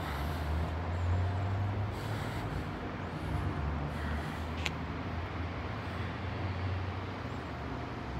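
Steady low rumble of road traffic, with one short sharp click about four and a half seconds in.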